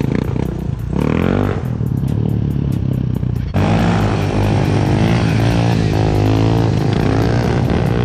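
Motorcycle engine revving, its pitch rising and falling repeatedly, over background music with a steady beat; the sound changes abruptly and gets louder about three and a half seconds in.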